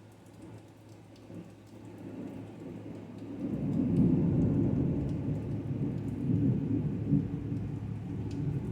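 Thunder rolling: a low rumble builds from about two seconds in, is loudest around four seconds, and keeps rumbling in uneven swells after that.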